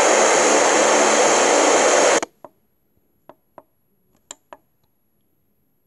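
FM radio hiss on an empty frequency, cutting off suddenly about two seconds in as the radio is retuned. It is followed by five short clicks from the tuning buttons being pressed.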